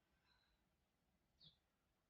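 Near silence, with one faint, brief high-pitched blip about one and a half seconds in.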